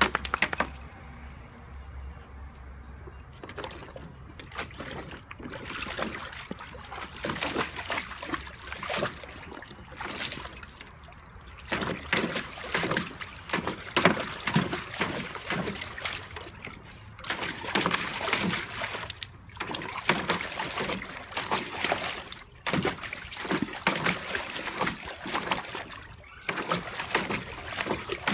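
A dog wading in a plastic kiddie pool, its paws and muzzle splashing and sloshing the water in irregular bursts, busier after the first few seconds.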